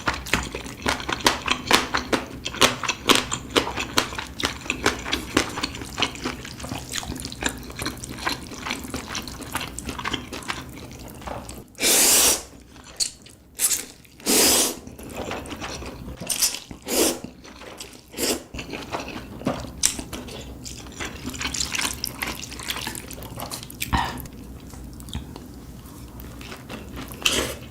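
Close-miked mukbang eating: rapid wet chewing and lip-smacking clicks, with a few louder slurping bursts around the middle.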